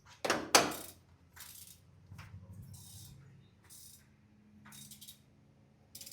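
Hand tools clicking and clinking on metal as the intake manifold bolts of a big block Chevy are tightened, the middle ones first. Two sharp clicks come in the first second, then fainter scattered clinks.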